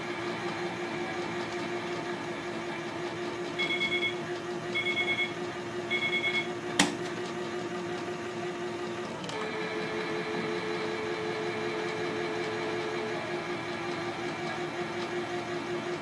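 Toy Miele washing machine running, its small electric motor whirring steadily. A few seconds in come three short high beeps about a second apart, then a single sharp click.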